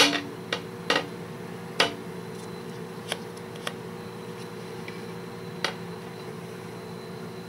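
A slow cooker's stoneware pot and lid being handled: several sharp knocks and clinks at irregular intervals, the loudest right at the start and most within the first two seconds, a couple ringing briefly, over a steady low hum.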